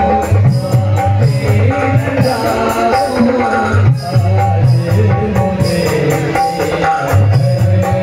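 Live Indian devotional-style song accompaniment: tabla and dholak drums playing a steady rhythm under a melody, amplified through a PA system.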